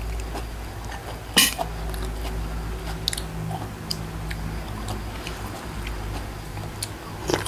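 Eating sounds: chewing, with a metal spoon clinking against a ceramic bowl. The sharpest clink comes about one and a half seconds in and another near the end.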